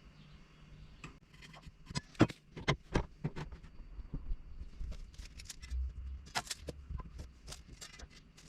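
Irregular light clicks and knocks of objects being handled, starting about a second in, with the sharpest knocks around two to three seconds in and another cluster past the middle.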